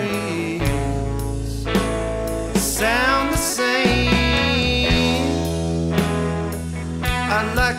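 Rock background music with guitar and a steady bass line.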